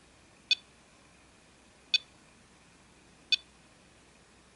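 Ericsson GH337 mobile phone's keypad beeping as its menu keys are pressed: three short, high beeps about one and a half seconds apart.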